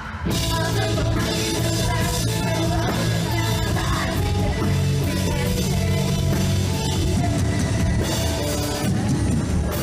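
Loud rock music with drums and singing.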